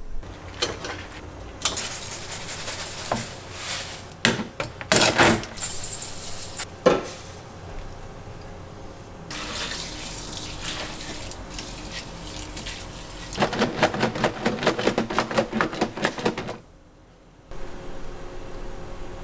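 Hot water poured from a pot into a plastic tub holding a range-hood mesh filter, splashing and running in several spells with short pauses between them.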